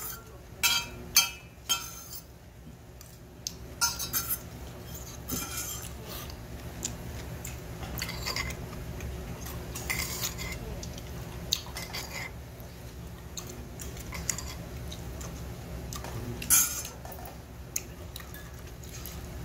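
Metal spoon clinking and scraping against a stainless steel bowl while scooping barley bibimbap, several sharp clinks in the first few seconds and another loud one near the end, with quieter chewing in between.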